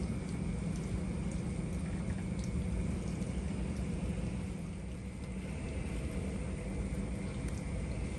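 Steady low rumbling outdoor background noise at night, with a faint steady high-pitched tone running through it.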